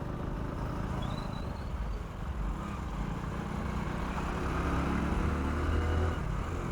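A 100 cc motorcycle riding at highway speed, its small engine humming steadily under road and wind noise. A deeper engine note grows louder from about four seconds in and fades near the end, as other vehicles are passed.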